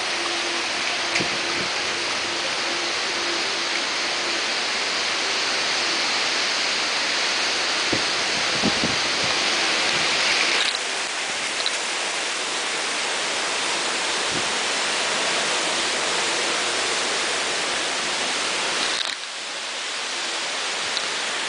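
Steady hiss of heavy wind-driven rain in a hurricane squall, with a few soft knocks about eight seconds in.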